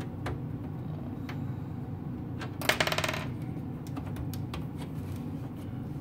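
Light clicks and taps of hands working at the back of a Lenovo ThinkCentre M900 desktop's metal case as its top cover and rear screw are refitted, with a brief metallic rattle about two and a half seconds in.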